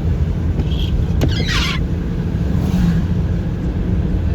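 Steady low rumble of road and engine noise inside a moving car. About a second in there is a sharp click, followed by a brief falling squeak.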